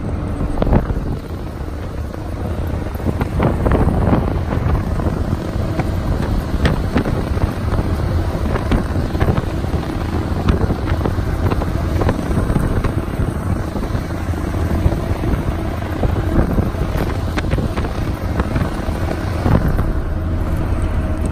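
Riding in a Toyota FJ40 Land Cruiser over loose, rutted sand: a steady low engine rumble and wind buffeting the microphone, with scattered knocks and rattles from the vehicle.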